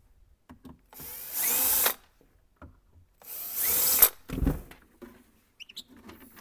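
Cordless drill/driver running in two bursts of about a second each, backing out the screws that hold the amp chassis in its cabinet. A dull thump follows just after the second burst.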